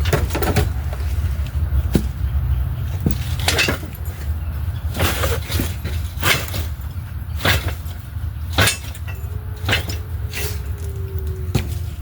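Irregular metal clanks and knocks, about a dozen, as a transmission is shifted and worked toward the engine it is being mated to, over a steady low hum.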